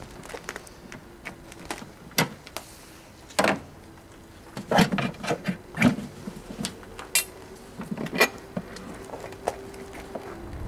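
Hand tools clinking and knocking against metal engine parts during alternator work: a dozen or so irregular sharp knocks, with a faint steady hum underneath.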